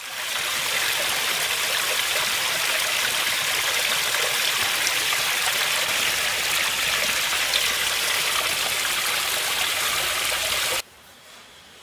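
Water of a small mountain stream running and splashing steadily over rocks, a full even rush that cuts off suddenly about eleven seconds in.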